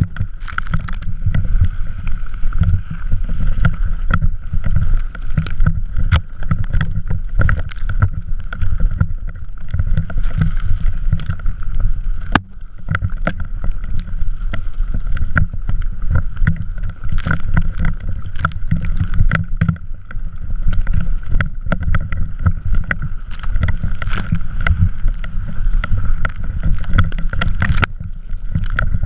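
Drift trike riding over snow: a constant low rumble of wind buffeting the microphone and wheels running on snow, broken by frequent knocks and rattles, with one brief lull about twelve seconds in.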